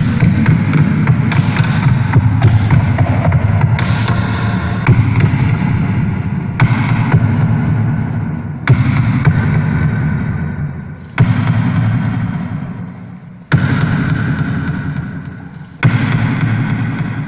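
Live electronic music: a loud, dense wash of noise over a low hum. From about six seconds in, sharp hits come every two seconds or so, each fading away before the next.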